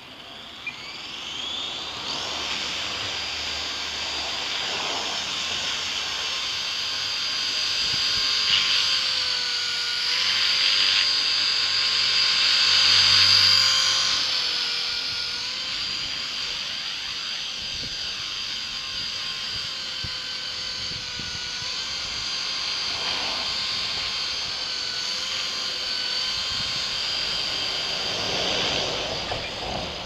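Blade 200 SRX electric RC helicopter spooling up about a second in, then running with a steady high motor whine and rotor whoosh while it hovers. Its pitch dips and recovers several times. It spools down near the end.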